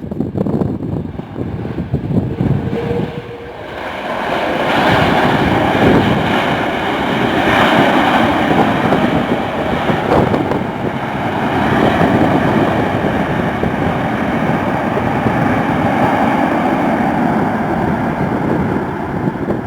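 Jet engine noise from an Airbus A330 MRTT (KC-30M) tanker as it comes past on landing: a loud, steady rushing noise that swells about four seconds in and holds.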